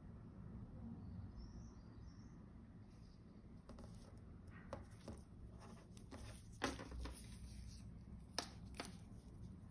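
Faint handling noise from a wristwatch and its leather strap being turned in cotton-gloved hands: soft rustles of glove on leather and a few small clicks, two sharper ones in the second half.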